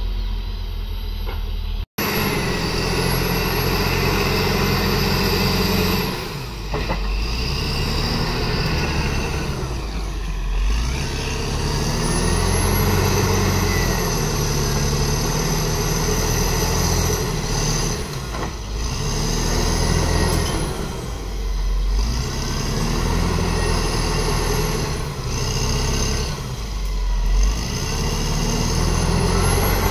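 Caterpillar D7R crawler dozer's diesel engine working under load as it pushes earth and brush, its note swelling and dipping every few seconds, with a high whine that rises and falls. The sound cuts out for an instant about two seconds in.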